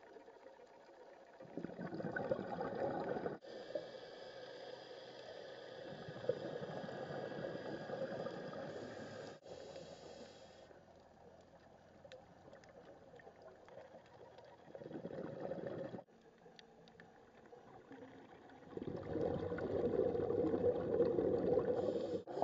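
Scuba diver's exhaled bubbles rumbling out of the regulator, heard underwater in several bursts of a few seconds each, with fainter hiss between them.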